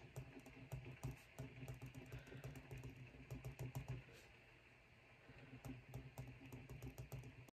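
Pen writing on paper on a desk: faint, quick scratches and taps of the tip, with a short pause a little past halfway before the writing goes on.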